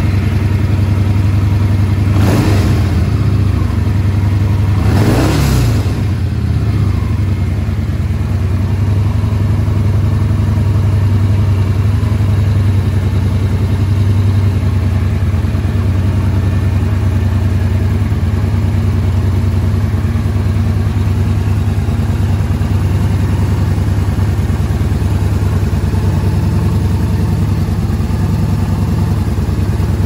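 Yamaha Bolt's air-cooled V-twin idling through an aftermarket Metal Field silencer just after starting, blipped twice about two and five seconds in, then settling to a steady idle.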